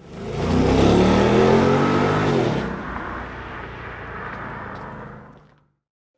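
Ford Mustang driving past under throttle: the engine note swells quickly, is loudest in the first two seconds, then drops and fades away shortly before the end.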